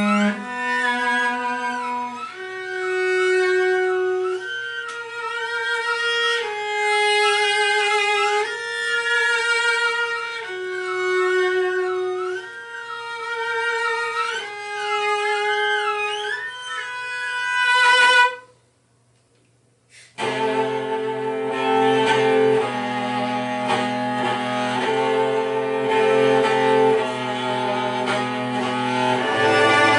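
Cello quartet playing: a high melody with wide vibrato and sliding notes over held lower notes, ending in a loud accent about 18 seconds in. About two seconds of silence follow, then all four cellos resume with dense sustained chords over a held low note.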